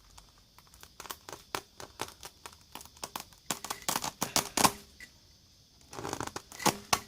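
A tyre-repair reamer (rasp tool) is being forced and worked into a tyre puncture to enlarge the hole for a plug. It makes a quick run of scraping, crackling clicks of metal on rubber, bunching up in the middle and again near the end.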